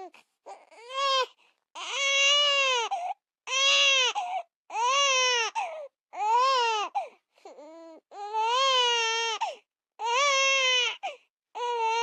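Baby crying: a run of about nine wails, each about a second long, rising and then falling in pitch, with short breaks for breath between them.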